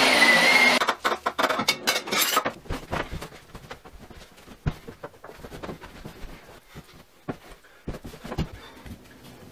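Upright vacuum cleaner running with a steady whine, cutting off about a second in. Then a rapid, irregular scatter of knocks, rustles and clatter from hurried tidying, fading toward the end.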